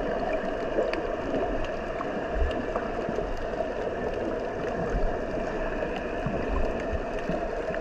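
Underwater ambience picked up by a submerged GoPro: a steady, muffled water rush with scattered faint clicks and a few soft low thumps.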